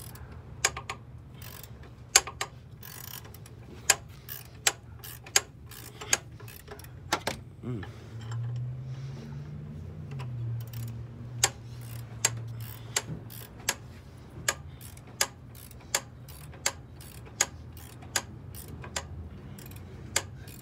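Ratcheting wrench clicking as it turns the forcing bolt of a pulley puller, drawing the power steering pulley off the pump shaft. It makes a steady series of sharp clicks, roughly one to two a second, over a low steady hum.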